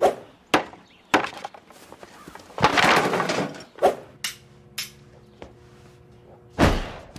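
Salad servers knocking and clattering in a wooden bowl as salad is tossed, with a longer crashing burst about two and a half seconds in and a heavy thump near the end.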